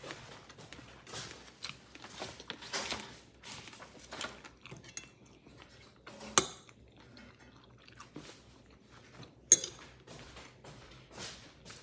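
A person eating with a metal fork: the fork scrapes and clinks against a dish, with chewing in between. Two sharp clinks stand out, about six seconds in and about nine and a half seconds in.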